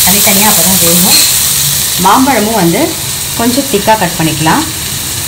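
Okra pieces sizzling as they fry in oil in a stainless steel pan, stirred with a spatula; the sizzle drops in level about three seconds in. A pitched, voice-like sound rises and falls in the background.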